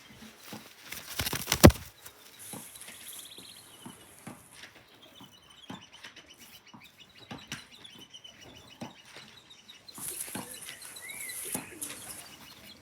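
A young racing pigeon flapping its wings in the hand, with rustling and clicking from the handling. The loudest flurry of wingbeats comes about a second and a half in.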